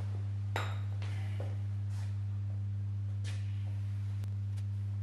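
Steady low electrical hum with weak overtones, and a few faint swishes of a foam applicator pad being rubbed over car window glass.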